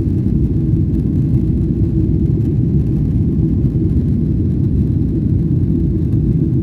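Cabin noise of a jet airliner climbing after takeoff, heard from a window seat: a steady low rumble of engines and airflow.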